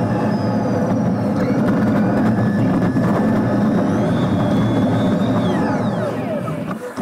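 Sped-up cabin noise from inside a moving Yutong E12 electric single-decker bus: a steady rush of road and drive noise with faint high whining tones. Near the end the sound dips briefly and the whining tones sweep quickly down and back up.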